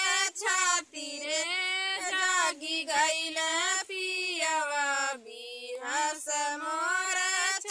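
Two women singing a Bhojpuri wedding folk song together without instruments, holding long gliding notes with short breaks for breath.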